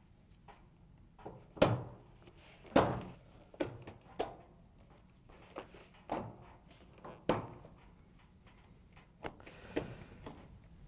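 Plastic locking tabs on a Whirlpool dryer's control console clicking and knocking as they are lifted up and snapped free by gloved hands. There are a number of separate sharp clicks, the loudest about one and a half and three seconds in, and a brief scrape of plastic near the end.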